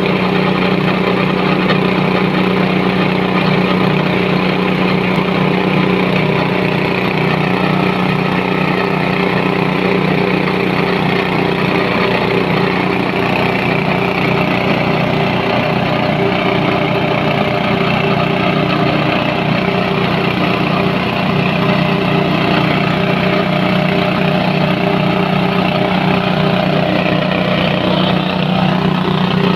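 Rice husk grinding mill running steadily, a continuous machine hum with no change in speed.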